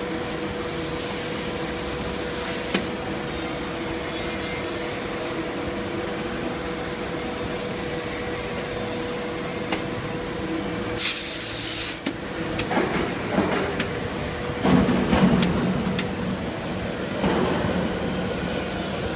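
Blown film extrusion machine running: a steady hum with a constant high whine from its motor and air-ring blower. About 11 seconds in, a loud burst of air hiss lasts about a second.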